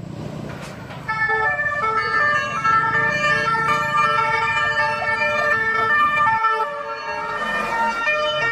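Electronic siren sound effect from a toy fire engine: several steady tones switching from pitch to pitch, with a low rumble beneath that stops about six and a half seconds in.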